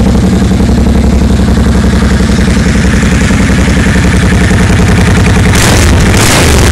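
Suzuki Boulevard M50's V-twin engine idling steadily through its chrome dual exhaust, with an even pulsing beat. A brief burst of rushing noise comes over it about five and a half seconds in.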